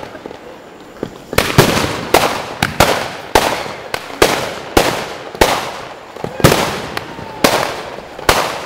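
Aerial firework shells bursting in rapid succession: sharp bangs, each trailing off, about two or three a second after a brief lull at the start.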